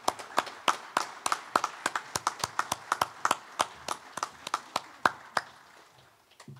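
A small audience clapping, the individual hand claps distinct rather than merging into a roar, thinning out and stopping about five and a half seconds in.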